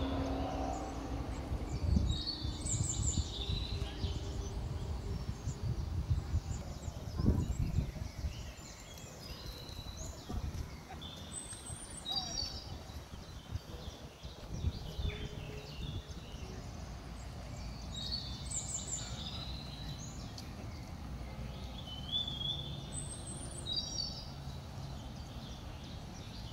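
A songbird singing short, high phrases, repeated about every five to eight seconds, over steady outdoor background noise. A low rumble is heavier in the first eight seconds and then eases.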